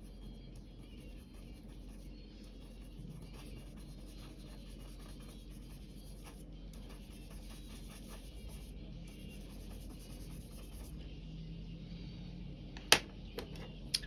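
Faint scratchy strokes of a small drawing tool worked over paper, blending and lifting charcoal on a portrait, over a steady low hum. A sharp tap near the end.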